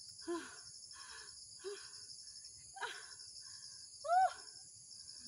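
Steady high-pitched drone of insects, with a few short rising-and-falling calls breaking in, the loudest about four seconds in.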